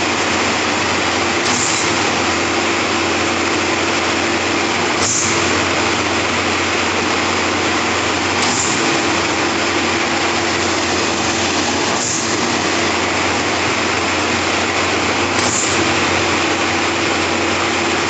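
Trailer-mounted diesel concrete pump running steadily while pumping concrete from a mixer truck's feed. A sharp knock comes about every three and a half seconds as the pump changes stroke.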